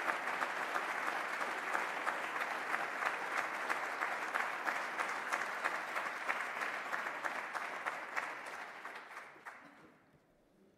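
Audience applauding, many hands clapping steadily, then thinning and dying away over the last few seconds.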